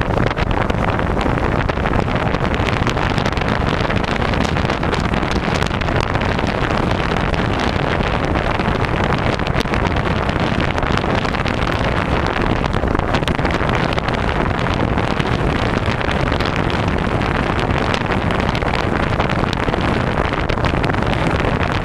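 Strong wind at sea buffeting the microphone in a steady, loud rush of noise without a break.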